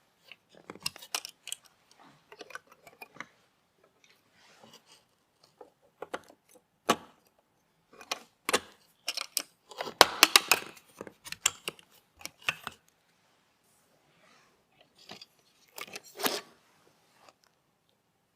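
Small clicks, taps and clinks of computer parts being handled and fitted during a PC build. The clicks come in a flurry about ten seconds in and again near the end.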